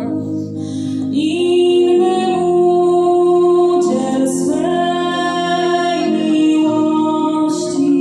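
Women's voices singing a song in long held notes, accompanied by accordion and acoustic guitar.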